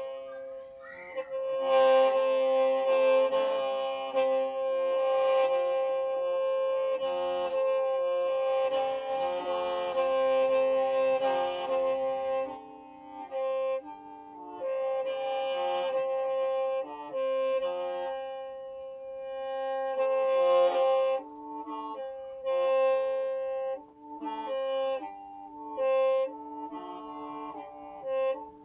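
Qeej, the Hmong free-reed bamboo mouth organ, playing several notes at once over a steady drone. The playing is continuous at first, then breaks into shorter phrases from about halfway on.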